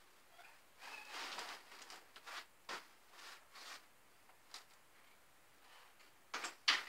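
Frame of a Silver Cross Pop stroller being handled: scattered clicks, rattles and rustles of its metal tubes, plastic joints and fabric, with a pair of sharp clicks near the end, the loudest sounds.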